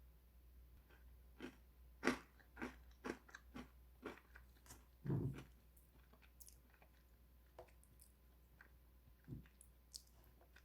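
Crisp bread sticks being bitten and chewed with sharp crunches, close up. The crunches come thick and fast in the first half, the loudest bites about two and five seconds in, then only a few scattered ones.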